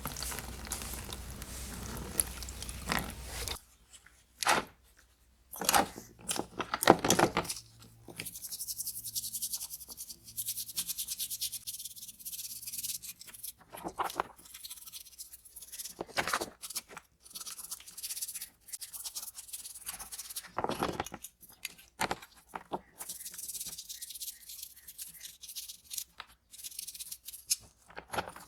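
Hand work on a small scale-model car: scattered scraping, rustling and sharp clicks, with patches of high hiss. A steady hiss with a low hum runs at the start and cuts off suddenly after about three seconds.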